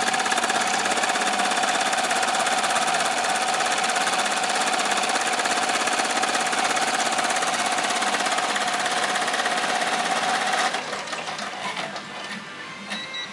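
Amaya 16-needle commercial embroidery machine stitching at speed: a fast, steady mechanical chatter of the needle drive with a steady whine under it. About ten and a half seconds in it drops off sharply, leaving a few lighter clicks.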